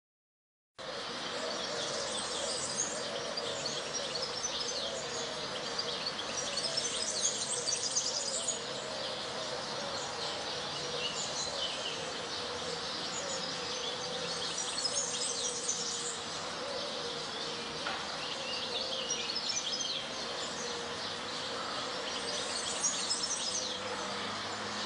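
Birds chirping and twittering in repeated bursts over a steady outdoor background noise with a faint steady hum, starting abruptly about a second in.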